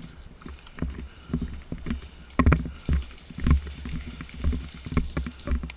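Irregular thuds and clicks, about one to two a second, with a low rumble: handling and movement noise on the microphone, like footsteps and gear knocking.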